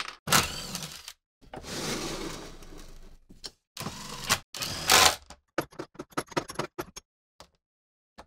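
Cast-iron bench vise being worked: its steel handle slides and clanks and the screw turns, in several separate bursts of metal scraping and clinking. These are followed by a run of quick light clicks about six seconds in.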